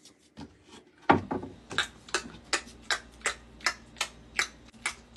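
Finger snapping in a steady rhythm, sharp snaps about two and a half a second, starting about a second in.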